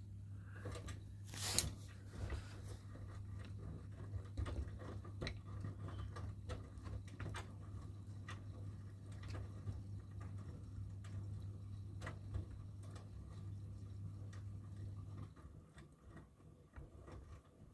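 Miele washing machine running: a steady low motor hum with the drum's light clicks and taps as the laundry tumbles, and a sharper click about a second and a half in. The hum stops about fifteen seconds in, leaving only faint ticks.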